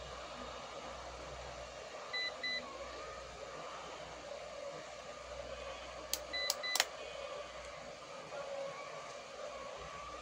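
Hot-air rework gun blowing steadily while a replacement surface-mount fuse is soldered onto a circuit board. Two short electronic beeps come about two seconds in. About six seconds in come a few sharp clicks and two more beeps.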